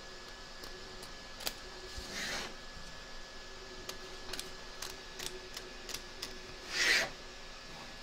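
Small scissors snipping away excess applique fabric along a stitched outline in an embroidery hoop: a series of faint, crisp snips, with two louder rustles of fabric being handled, about two seconds in and near the end.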